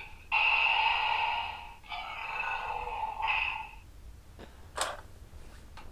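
DX Wizard Driver toy belt playing its electronic sound effects through its small built-in speaker in three bursts, followed by two sharp clicks about four and a half seconds in.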